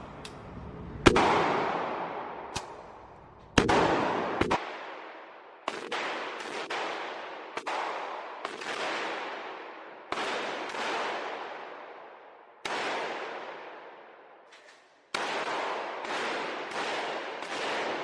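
Gunshots at a shooting range: about fifteen single shots fired at an uneven, unhurried pace, some close together and others a second or more apart. Each shot rings out with a long, fading echo.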